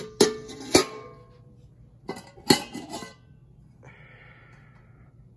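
Stainless steel dome plate covers clanking against plates and the table as they are lifted and set down: a few sharp metallic knocks, each with a short ring, in two clusters about two seconds apart.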